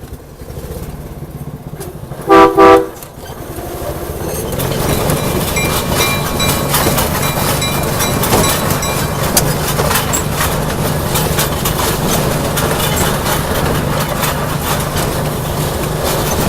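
Small ride-on train's horn sounding briefly in two quick toots, then the train's engine running and its cars rattling and clicking as the ride gets under way.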